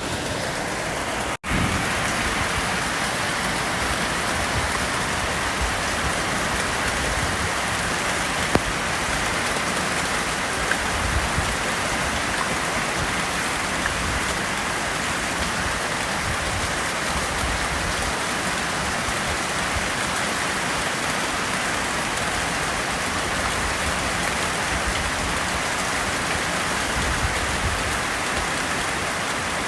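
Heavy rain falling steadily during a thunderstorm, a dense even hiss that briefly cuts out about a second and a half in.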